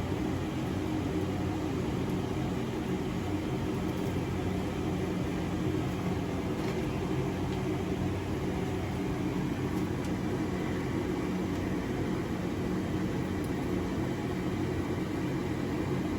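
Blacksmith's forge running steadily, its blower and fire making an even rushing noise over a low hum, while a borax-fluxed steel bar heats to forge-welding heat.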